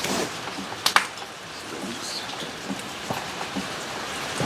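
Steady hiss with a sharp click about a second in and a softer knock later, the sounds of hands and tools working on interior parts inside a stripped-out Jeep Cherokee.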